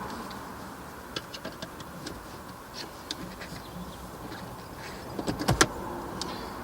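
Small clicks and taps of a screwdriver pushing the cross pin out of the bottom of a column gear-shift shaft, with a louder cluster of clicks about five and a half seconds in.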